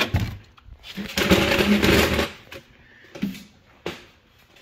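Handling and movement noise as the camera is carried: a sharp knock at the start, then about a second of scraping rustle, with a few small clicks near the end.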